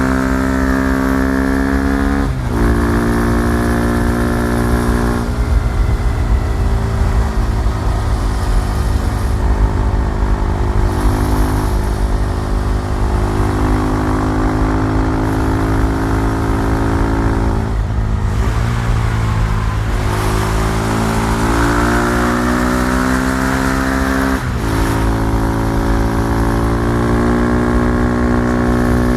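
KTM Duke 390's single-cylinder engine running under way, its note rising and easing with the throttle and dropping sharply a few times, around 2 s, 18 s and 24 s in, as on shifts or throttle lifts.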